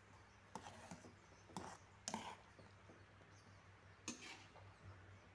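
A few faint clinks and knocks of a metal ladle against an aluminium pot as sautéed shrimp are spooned into the soup, about five in all; otherwise near silence with a low steady hum.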